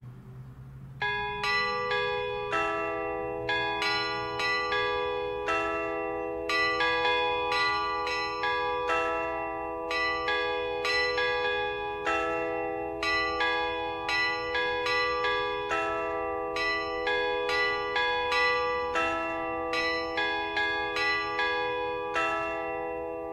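Church bells ringing, several bells of different pitch struck one after another, about two strikes a second, their tones ringing on and overlapping. The ringing starts about a second in.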